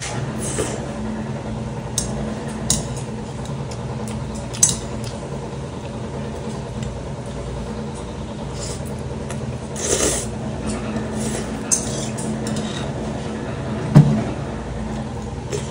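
Noodle slurping and chewing while eating jjajangmyeon, with metal chopsticks clinking against a stainless steel bowl; the sharpest clink comes near the end and is the loudest sound. A steady low hum runs underneath.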